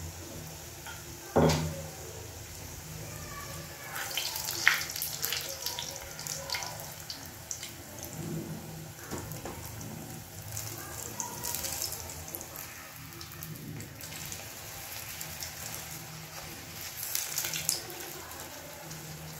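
Potato mathri shallow-frying in hot oil in a small non-stick kadhai: a crackling sizzle that swells and fades as the pieces are turned. There is a sharp knock about a second and a half in.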